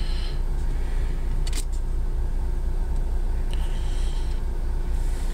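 Steady low rumble inside a Toyota Corolla's cabin, with a faint rustle near the start and again about four seconds in, and a single click about a second and a half in.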